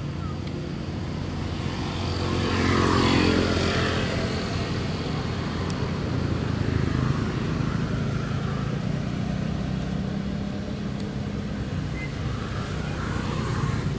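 A motor vehicle engine running, growing louder as it passes about three seconds in and then fading, with a steady engine hum underneath.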